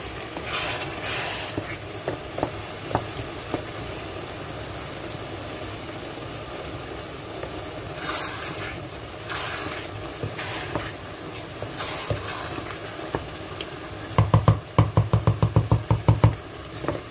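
A pot of spinach stew simmering and sizzling while a wooden spoon stirs it in a stainless steel pot, with light scrapes and taps of the spoon against the pot. Near the end comes a quick run of about a dozen loud knocks, several a second.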